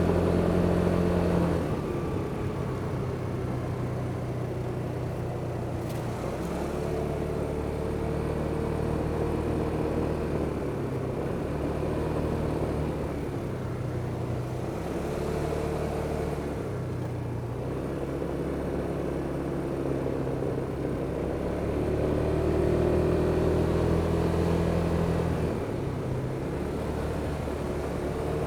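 Kymco Superdink 300 scooter's single-cylinder four-stroke engine running under way, its note stepping up and down as the throttle is opened and eased off, a little louder a little after twenty seconds in.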